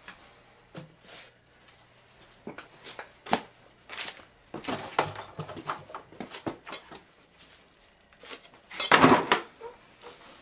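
Steel bar of a mini tire changer being levered around a small mower tire's bead: scattered clinks and scrapes of metal on the wheel rim and rubber, with one louder scraping rub near the end.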